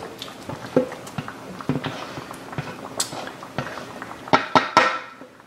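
A spoon scraping and tapping chopped chicken off a wooden cutting board into a pan of simmering broth: scattered clicks and knocks, with a quick run of louder taps near the end.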